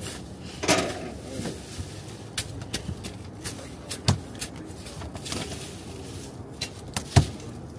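Scattered knocks, scrapes and rustling as a cardboard-boxed heat pump outdoor unit is handled and opened and a shovel digs in soil. The loudest sharp knock comes near the end.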